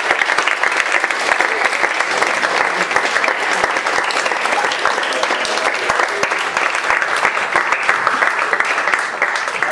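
A small seated audience applauding, dense and steady, with a few voices mixed in.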